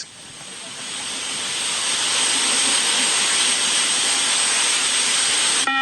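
Steady broad hiss that swells over about two seconds and then holds, cut off suddenly near the end by a short beep, the beep test's shuttle signal.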